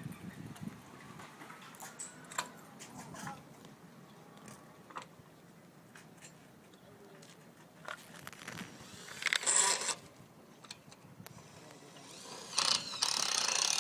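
Tools and metal hardware being handled: scattered clicks and knocks, with two louder rasping bursts, one about nine seconds in and one near the end.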